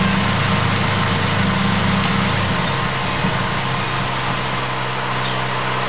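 Car engine idling on gasoline vapor from a home-made vaporizer. About two and a half seconds in, its note drops and it gets slightly quieter as it starts to starve, with the vaporizer cap taken off and no more vaporized gas going into the engine.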